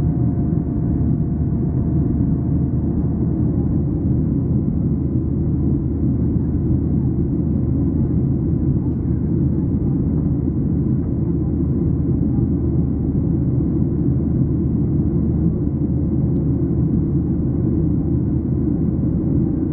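Steady low rumble of a moving vehicle heard from inside, with a few faint steady hum tones above it.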